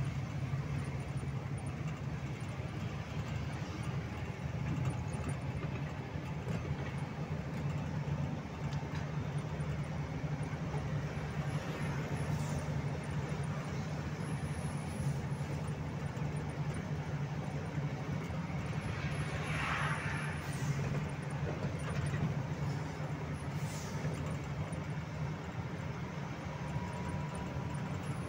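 Truck engine running steadily at cruising speed, a low drone under road and tyre noise.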